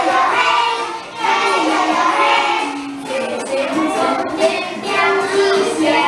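Children singing a song together, with musical accompaniment.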